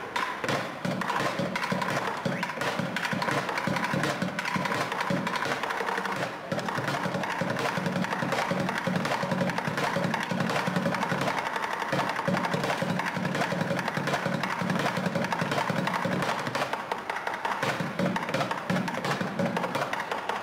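Fast drumming with wooden drumsticks on upturned plastic buckets: a dense, rapid stream of strokes that eases off briefly about six seconds in.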